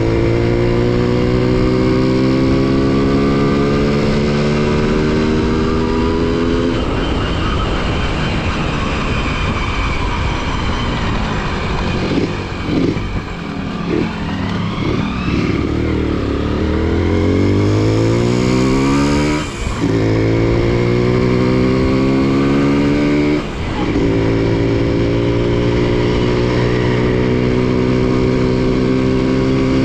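Honda CDI-100 motorcycle's single-cylinder four-stroke engine running under way, steady at first, then picking up speed. The note rises steadily, with two brief drops in pitch and level, the later one near the end, each followed by a steady note, as at gear changes.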